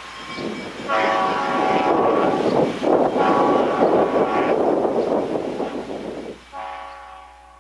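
Diesel train's multi-note air horn blowing three times as the train approaches, the last blast fading out near the end, over heavy wind buffeting on the microphone.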